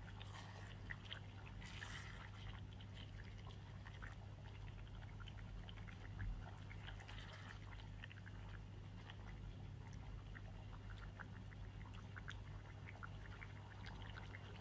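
Spoon stirring a thick beans stew in a pot: faint wet squelching with small scattered ticks of the spoon against the pot, and one slightly louder knock about six seconds in, over a steady low hum.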